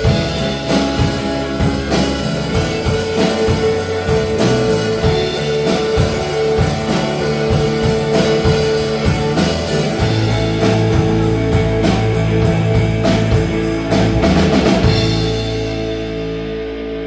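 Rock band playing live with drum kit and electric guitar. Near the end the drums play a quick run of hits, then a final chord is left ringing and fades away.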